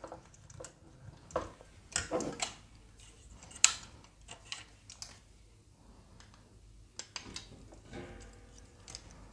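Scattered light clicks and taps of small plastic and metal parts and screws being handled while a scale-model car wheel is fitted, with one sharper tap about three and a half seconds in.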